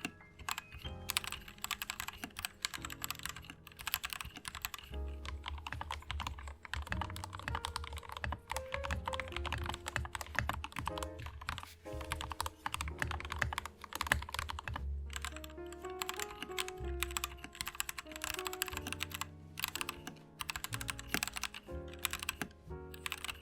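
Typing sound test on an LTC Nimbleback 65% mechanical keyboard, heard both stock and modded: a dense run of keystroke clicks throughout, over background music.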